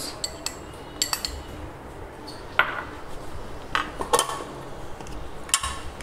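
Steel spoon clinking against a small glass bowl and a plastic mixing bowl: about six short, separate clinks, some with a brief ring.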